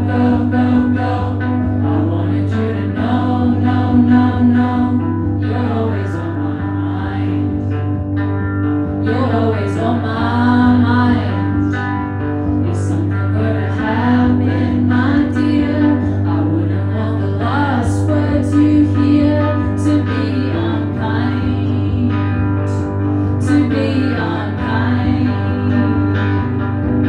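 Live indie rock performance: electric guitar over steady bass notes, with sung vocals.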